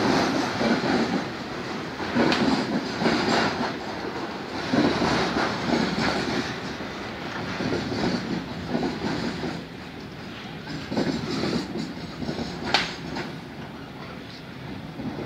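Container freight train's flat wagons rolling past close by, the wheels clattering over the rail joints in repeated clusters of knocks every second or two over a steady rumble. There is a sharp clank about 13 seconds in, and the clatter grows a little quieter toward the end as the last wagons near.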